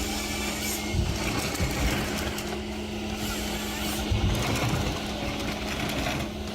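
Engine of a heavy forestry machine running with a steady hum. Rough, louder noise from the machine working comes and goes over it.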